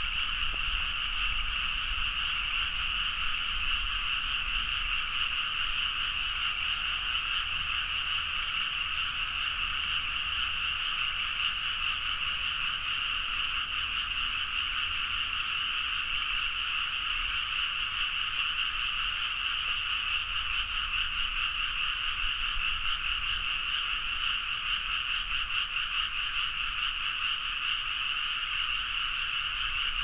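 Dense, unbroken chorus of many Japanese tree frogs croaking together, a steady high-pitched wall of calls.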